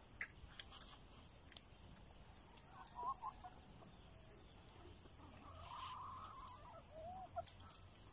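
Faint outdoor farmyard ambience: a steady high insect drone, with distant chickens clucking a couple of times and a few light clicks.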